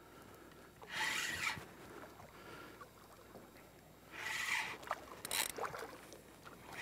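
Hooked tripletail thrashing at the water's surface beside the boat: two short splashes, about a second in and about four seconds in.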